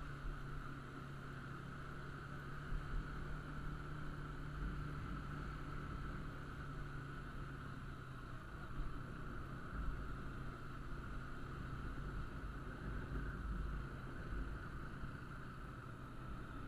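Motorcycle engine running at a steady pace while riding, with no revving, and a low rumble of wind on the microphone.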